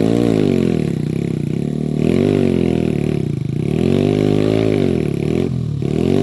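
Motorcycle engine revved up and down again and again, its pitch rising and falling in repeated swells.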